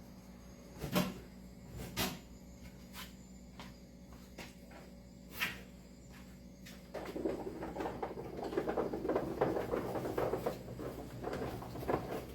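Hands loading chopped bellflower root, herbs and wild pear into a decoction cooker. There are a few sharp knocks about a second apart, then from about seven seconds in a continuous rustling and light clattering of the pieces being handled.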